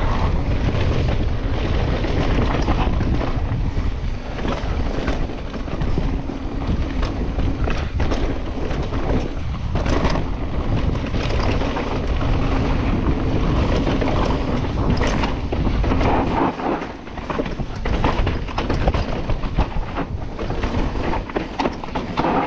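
Mountain bike descending a dry, dusty trail at speed: wind rushing over the microphone with tyre noise on dirt, and short knocks and rattles as the bike hits bumps.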